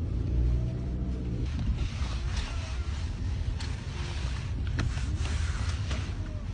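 Car driving, heard from inside the cabin: low engine and road rumble, with a steady hum for about the first second and a half and a couple of light clicks partway through.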